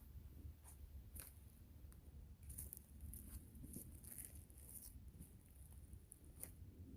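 Near silence: a faint low background hum with a scattering of light clicks, two of them a little plainer, about a second in and near the end.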